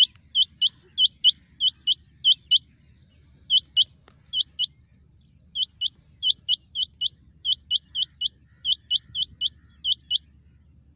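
Rain quail calling: sharp, high double notes repeated about two pairs a second, with a couple of short breaks.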